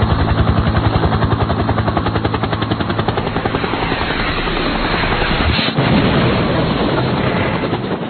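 Helicopter rotor chopping fast with its engine running, in a helicopter-crash sound effect. About five and a half seconds in there is a sharp impact, after which the steady rotor beat breaks up into a rougher, noisier rumble that begins to fade near the end.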